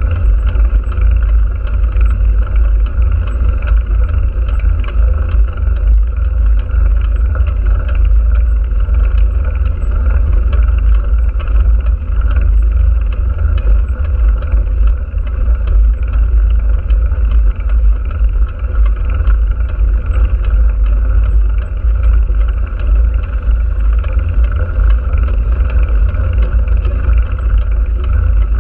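Heavy wind rumble on the action camera's microphone from riding along the road, steady and unbroken, with a constant drone underneath.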